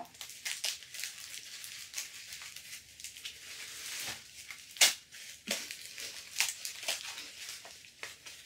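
Tissue paper crinkling and rustling as a small wrapped packet is pulled open by hand, with many short crackles and one sharp, louder click about five seconds in.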